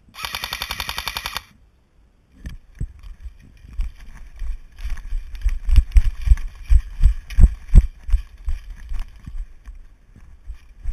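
Airsoft electric rifle (AK replica) firing one full-auto burst of about a second and a half, a fast even chatter. After a brief pause come heavy, uneven running footsteps on a stony dirt track, with thuds and knocks from the jolting head-mounted camera and gear.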